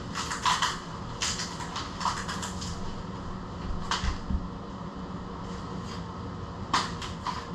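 Plastic packaging and bubble wrap being handled: short spells of crinkling and rustling, with a soft thump about four seconds in.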